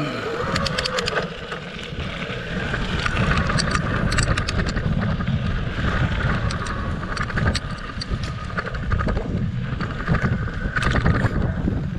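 Electric mountain bike pulling away from a stop and riding over a dirt and sandy trail: tyres rumbling over the ground, wind buffeting the microphone, and frequent small clicks and rattles from the bike.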